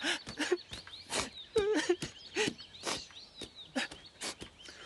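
Cartoon sound effects of a caribou character walking away: a string of soft, irregular footstep taps mixed with short wavering vocal sounds, and faint bird chirps behind.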